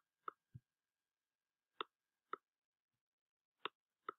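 Near silence broken by about six faint, short clicks at uneven intervals.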